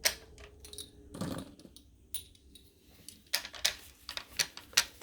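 Sharp metallic clicks and taps of .30-06 cartridges being handled and loaded into a bolt-action rifle's magazine, a few single clicks followed by a quick run of them in the second half.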